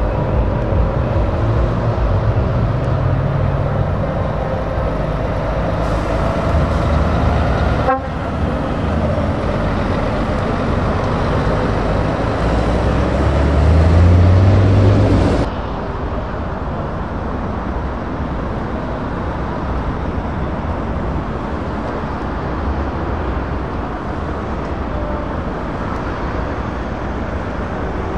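Heavy truck diesel engines pulling away, with an air horn sounding at the start and fading out. Partway through, one truck's engine revs up, rising in pitch, before the sound cuts to steadier engine and road noise.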